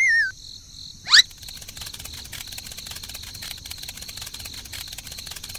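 A wavering cartoon whistle sliding down in pitch ends just after the start, a quick rising whistle sweeps up about a second in, then crickets chirp steadily.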